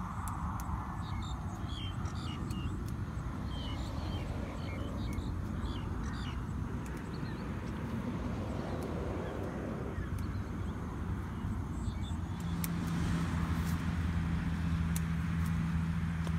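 A motor running steadily with a low hum, a stronger, steadier hum coming in about twelve seconds in, with faint short high chirps over it in the first half.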